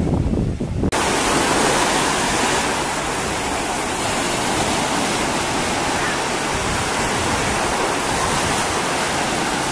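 Small sea waves breaking and washing over the sand at the water's edge: a loud, steady hiss of surf. About a second in, a lower wind rumble on the microphone cuts off abruptly and the surf hiss takes over.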